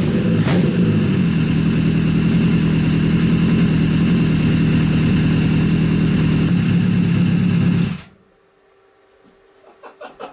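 Freshly rebuilt Honda CBR1000 inline-four motorcycle engine running steadily at idle with new pistons and rings, sounding healthy and smooth. It cuts off suddenly about eight seconds in.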